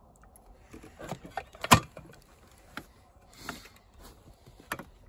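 Scattered knocks and clicks of an outlet box and a spirit level being handled against vinyl siding, with one sharper knock a little under two seconds in.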